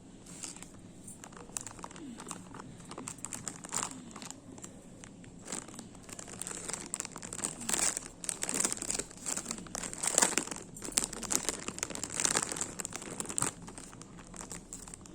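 Packaging being crinkled and torn open by hand: a run of crackling rustles that grows louder about halfway through and eases off near the end.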